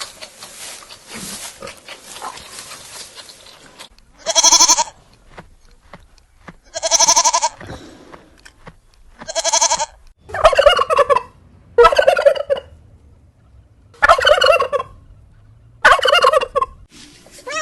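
Turkey gobbling, seven loud rattling calls of about a second each, starting about four seconds in, after a few seconds of faint background noise.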